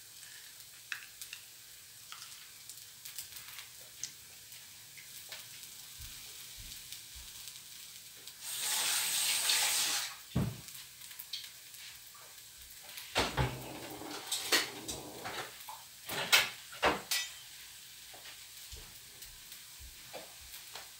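Dosa batter topped with zucchini, carrot and butter sizzling faintly on a flat pan. About eight seconds in there is a loud rush of noise lasting a second or two, and a scatter of knocks and clinks follows in the second half.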